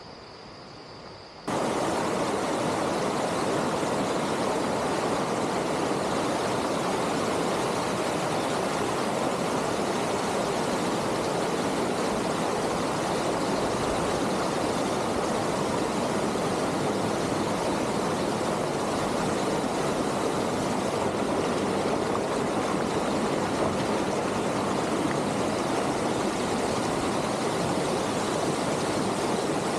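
Steady, even rushing noise that cuts in suddenly about a second and a half in and holds unchanged.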